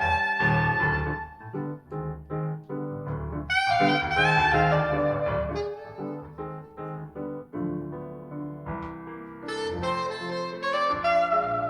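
Soprano saxophone playing a jazz melody in phrases of long held notes, with piano chords underneath.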